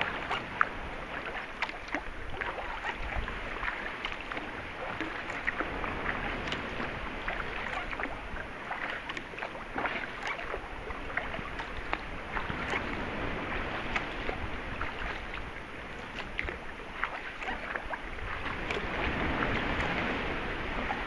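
Sea kayak being paddled on calm water: paddle blades dipping and dripping, with small splashes and water lapping against the hull, in a steady run of little splashes and drips.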